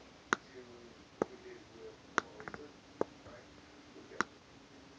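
Computer mouse buttons clicking: single sharp clicks roughly once a second, with a quick run of softer clicks just after the middle.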